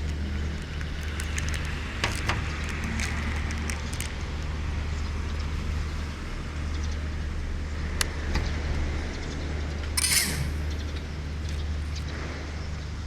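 Steady low electrical hum with hiss and scattered crackles and clicks, the noise of an FPV video-receiver and DVR audio feed. A brief louder burst of hiss comes about ten seconds in.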